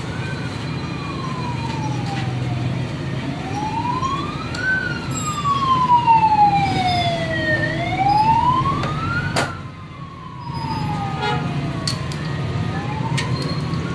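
A siren wailing, its pitch rising quickly and falling slowly in cycles of about four seconds, over a steady low hum. A sharp click comes about nine and a half seconds in, followed by a brief dip in loudness.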